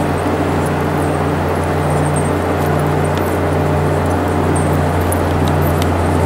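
Motor grader's diesel engine running steadily under load as the machine ploughs through deep snow.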